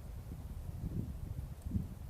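Low, gusting rumble of wind buffeting the microphone.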